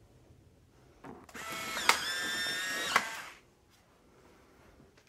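Instant film camera taking a picture: a sharp shutter click, then its small motor whirring with a steady whine for about two seconds as it ejects the print, ending with another click.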